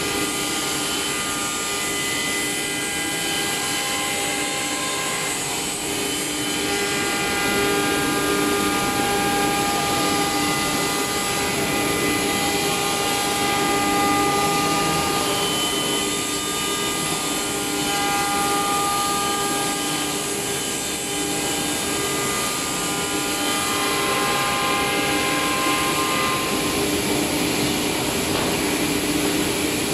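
Spindle of a CF-DZ1625ATC1 CNC router routing a circular ring out of a wood panel: a steady whine over the rush of cutting. Several tones fade in and out every few seconds as the cutter travels around the curve.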